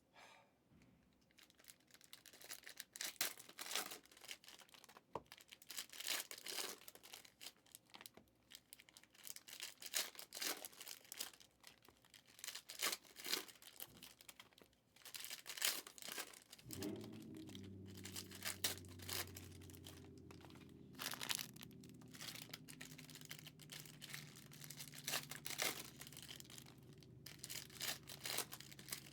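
Plastic wrapping crinkling and rustling as it is handled, in many short irregular crackles. A low steady hum comes in a little past the middle and holds.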